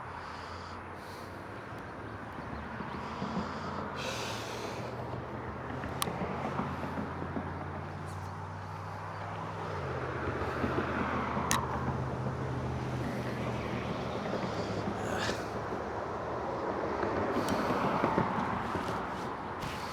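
Road traffic by the creek: a low engine hum that shifts pitch a couple of times, with tyre noise swelling and fading as vehicles pass, and a few sharp clicks.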